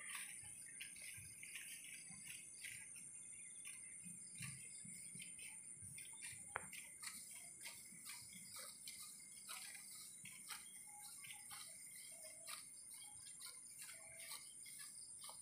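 Faint, irregular soft tearing clicks of water buffalo cropping grass, with one sharper click about six and a half seconds in, over a steady high hiss.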